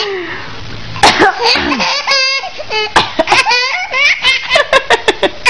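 Baby laughing in a string of short, high-pitched bursts that start about a second in and come quicker in the second half.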